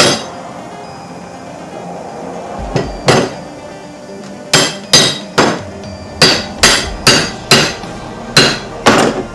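Hammer blows ringing on the seized (frozen) U-joint of a Dodge Durango front driveshaft. One strike comes at the start and another about three seconds in, then a run of nine roughly every half second from about four and a half to nine seconds.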